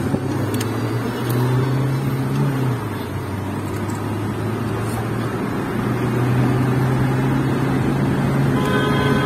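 Car engine and road noise heard from inside the cabin while driving at speed. The engine note drops about three seconds in and rises again a few seconds later. A horn sounds near the end.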